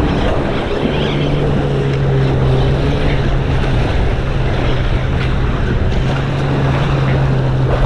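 An engine drones steadily in a low, even hum, with wind rushing over the microphone.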